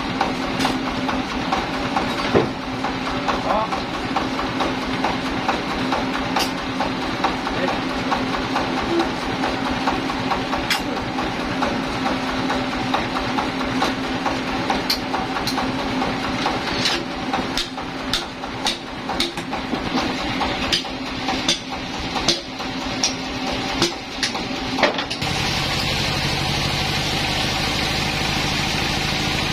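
A sawmill engine running steadily, with scattered sharp knocks and clicks over it. About 25 seconds in, the sound switches abruptly to a different, even hum.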